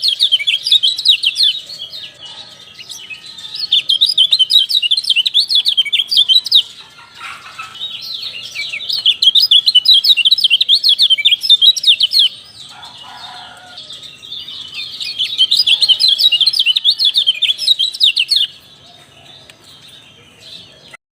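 Kecial kuning (common iora) giving rapid, high-pitched chattering 'ciak-ciak' calls in four bouts of a few seconds each, with short pauses between them. The calls stop near the end.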